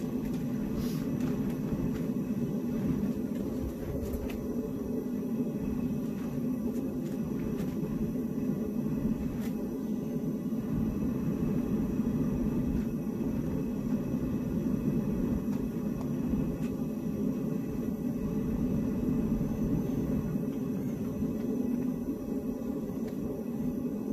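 Two-burner propane forge running with a steady, even low rushing noise while steel heats inside it, with a few faint clicks.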